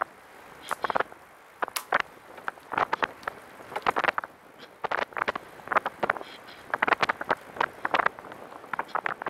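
Catrike 700 recumbent trike ridden fast on a paved trail: a run of short, irregular noisy bursts, roughly one cluster a second, over a faint steady background.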